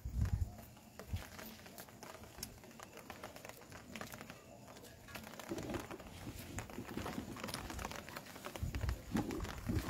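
Faint scattered patter of light rain with crinkly rustling, and a few dull footstep thumps about halfway through and near the end.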